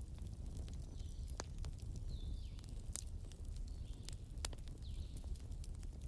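Wood fire burning in a fireplace: a low steady rumble with irregular sharp crackles and pops from the logs, and a few short high-pitched squeals among them.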